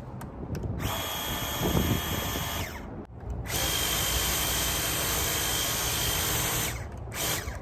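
DeWalt 20V Max cordless power cleaner running on its high setting and spraying water. The trigger is squeezed in bursts: one of about two seconds, a longer one of about three seconds, and a short blip near the end, with the motor stopping between them.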